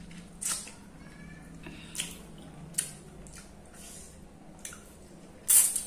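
A person's close-miked eating noises while eating a juicy, chilli-mashed sour fruit: a handful of short, wet lip smacks and sucking sounds, with a louder, longer one near the end.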